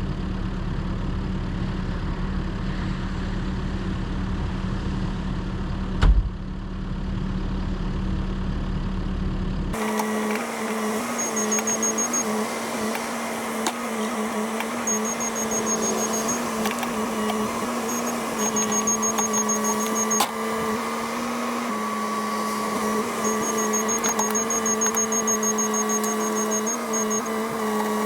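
A vehicle engine idling steadily, with one sharp knock about six seconds in. About ten seconds in the sound switches to the Cat 308 excavator running: a steady machine whine, broken several times by strings of rapid, high-pitched beeps.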